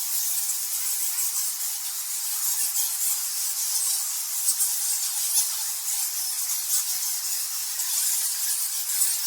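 A colony of bats squeaking and chittering: a dense, unbroken mass of many short, very high-pitched squeaks overlapping, with no low sounds underneath.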